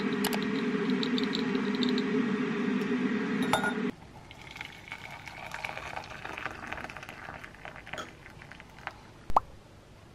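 For the first four seconds a loud steady hum sounds, with light metallic ticks as loose-leaf tea goes into a mesh infuser. The hum cuts off suddenly. Hot water is then poured from a kettle into a ceramic mug over the infuser, and there is one sharp clink near the end.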